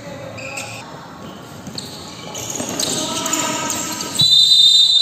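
A futsal ball being kicked and bouncing on the indoor court, with players' voices, then about four seconds in a loud, steady blast of the referee's whistle, signalling the end of the first half.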